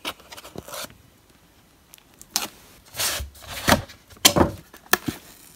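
Cardboard packaging of an Amazon Echo being handled: the inner box slides and scrapes out of its cardboard sleeve and is set down. There are a string of rubbing swishes and a few sharp knocks, with the loudest strokes past the middle.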